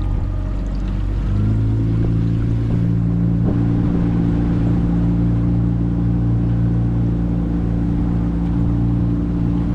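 The skiff's boat engine running under way, a steady drone that gets louder about a second in and holds there; it has just been serviced with new spark plugs after fouled plugs made it die.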